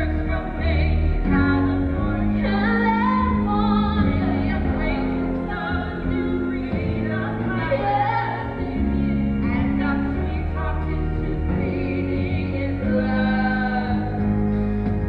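A song with female voices singing over a band, with held bass notes underneath.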